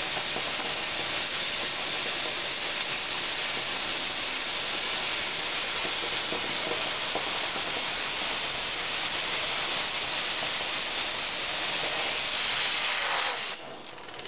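Oxy-fuel cutting torch on a CNC machine cutting 15 mm steel plate: a loud, steady hiss of the gas jet. Near the end it cuts off suddenly, leaving a quieter running sound.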